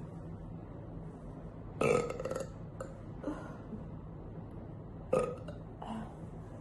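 A woman burping: two loud belches, about two seconds in and about five seconds in, with a few shorter, softer ones between and near the end.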